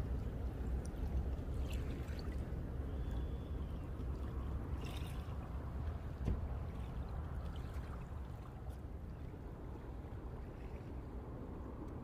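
Small waves of calm sea water lapping and trickling at the shore, over a steady low rumble, with a few brief faint ticks.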